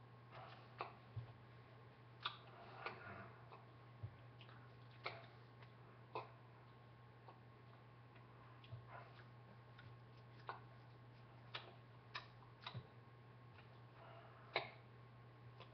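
Near silence over a steady low electrical hum, broken by about a dozen faint, irregularly spaced taps and clicks from hands meeting and brushing clothing as they gesture.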